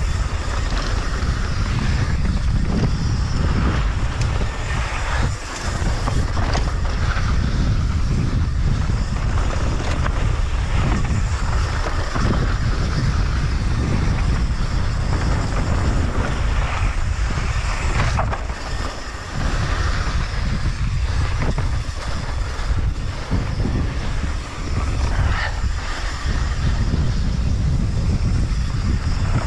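Wind rushing over an action camera's microphone on a fast downhill mountain-bike run, with the tyres rolling over loose dirt and the bike rattling over bumps.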